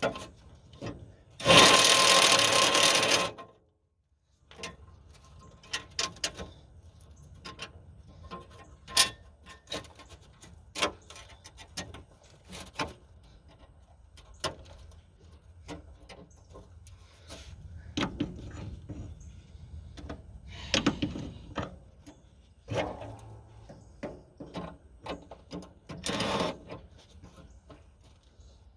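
A power drill runs in one short burst of about two seconds near the start, then scattered clicks, knocks and rattles of metal panels, parts and screws being handled.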